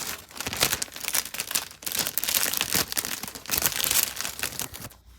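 Plastic packaging crinkling and rustling in irregular bursts as it is handled, dying away near the end.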